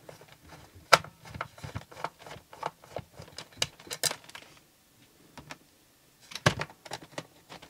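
Irregular small clicks and taps of a screwdriver and the plastic housing as the fan-motor cover of a Roborock S7 MaxV robot vacuum is unscrewed and handled. The clicks stop for about a second and a half about two-thirds through, then a few sharper clicks follow.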